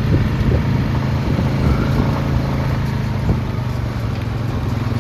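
Four-wheeler (ATV) engine running steadily at an even, low speed, heard from the rider's seat.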